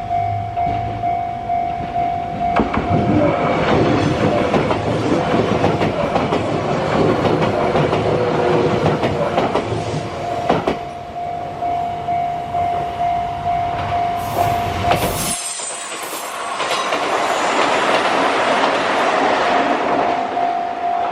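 Japanese railway crossing warning bell ringing in a steady repeating beat while a Kintetsu electric train passes over the crossing, its wheels rumbling and clacking over the rail joints. The first train's rumble cuts off abruptly about two-thirds of the way through, and another train's noise follows, the bell still ringing.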